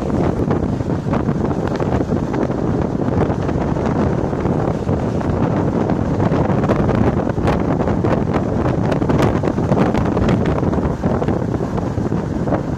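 Steady, loud wind buffeting a moving microphone, with a few light ticks in the second half.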